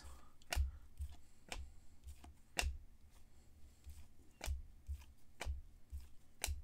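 Trading cards being handled and flipped through by hand: faint, irregularly spaced clicks and snaps as the cards slide and knock against each other, with soft low thumps of handling.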